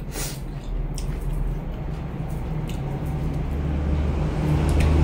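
Soft wet chewing and mouth sounds of someone eating a mouthful of bún bò Huế rice noodles, with a few small clicks. A steady low hum runs underneath and grows louder toward the end.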